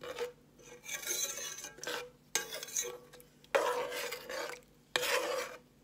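A spoon stirring watery curry broth with vegetables in a metal pot, sloshing in several separate sweeping strokes.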